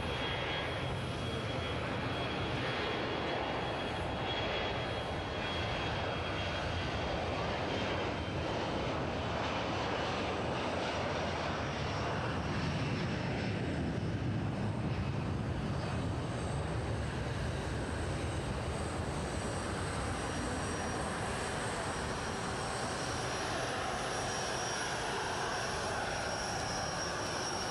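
Boeing 737 jet airliner's twin turbofan engines at takeoff power during the takeoff roll and climb-out: a steady, loud jet noise with a thin high-pitched whine over it.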